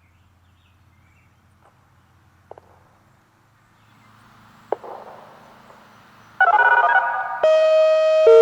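Whelen WPS-2809 electronic warning siren starting its hi-lo test signal. After faint background with a couple of clicks, a loud, brief warbling tone comes on about six seconds in, then a steady high tone that drops to the lower tone near the end.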